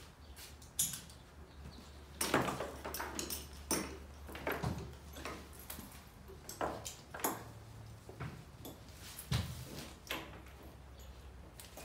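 Irregular knocks and clinks of horse tack being handled, with footsteps and shuffling around a cross-tied horse, over a steady low hum.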